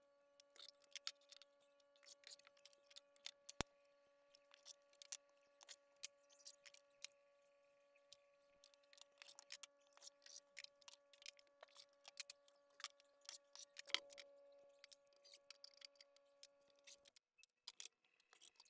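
Faint, irregular light clicks and taps, one louder knock about 14 seconds in, over a faint steady hum that cuts off about 17 seconds in.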